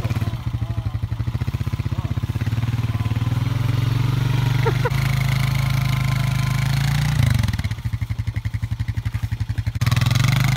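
Quad bike (ATV) engine running as it is ridden slowly over grass. It pulses steadily at first, picks up a few seconds in, drops back to a low throb after about seven seconds, and picks up again near the end.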